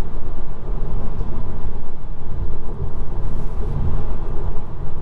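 Steady road and tyre noise heard inside the cabin of a Tesla Model 3 cruising at freeway speed, a low rumble.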